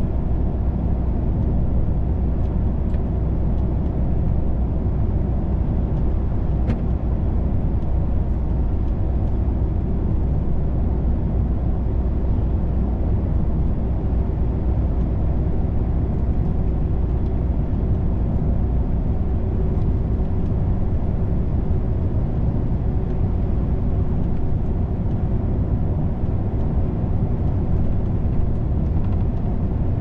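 Cab interior of a DAF XF 510 truck cruising at steady speed: a constant low drone from its PACCAR MX-13 straight-six diesel, mixed with tyre and road noise.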